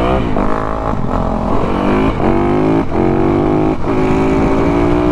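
Yamaha YZ450FX four-stroke single-cylinder dirt bike engine accelerating hard through the gears. The pitch climbs and drops back at each of about four upshifts, then holds steadier near the end, with wind rushing over the helmet microphone.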